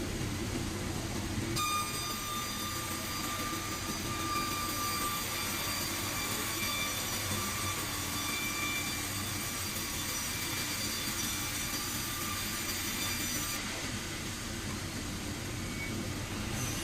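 Sawmill machinery running steadily with a low rumble, joined by a steady high whine from about a second and a half in that stops shortly before the end.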